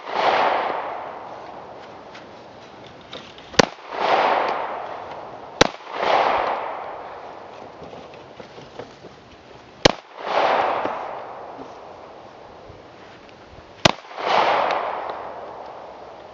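Four single pistol shots from a Caracal F, spaced a few seconds apart and unevenly, each followed by an echo that dies away over about a second.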